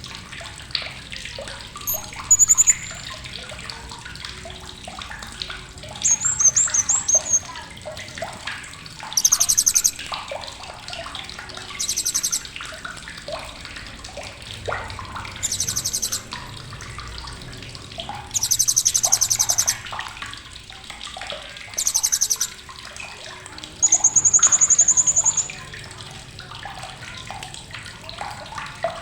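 Blue-crowned hanging parrot (srindit) giving sharp, very high-pitched chattering calls: about eight separate bursts, several of them fast buzzy rattles and one a steadily held shrill note near the end. A steady water-like rush runs beneath.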